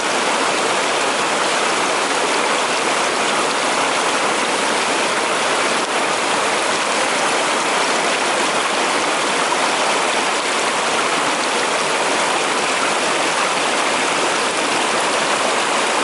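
Turbulent forest stream rushing and splashing over rocks right below the microphone, a steady, even rush of water.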